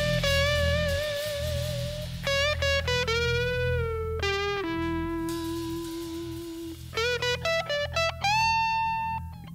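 Music: an electric guitar lead line of sustained notes with vibrato and bends, one note held for about two seconds midway, over a low backing.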